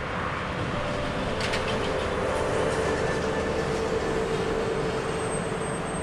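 Vertical lift bridge's span machinery running, a steady rumble of steel machinery with a humming whine that swells in the middle and fades near the end. A short metallic rattle about a second and a half in.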